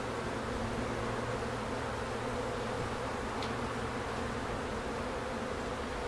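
Steady buzzing hum of many honeybees around an opened hive, the colony stirred up as frames are lifted out for inspection.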